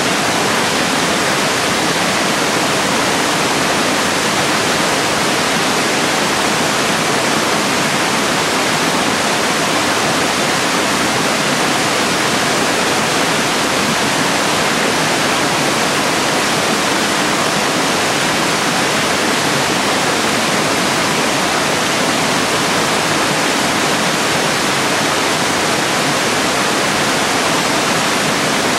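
Stream water pouring over a rock ledge in a small waterfall: a steady, even rush of falling water that does not change.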